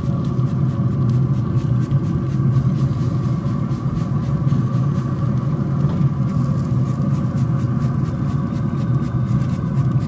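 Pellet grill's fan running: a steady low hum and rumble with a fainter higher whine, unchanging throughout.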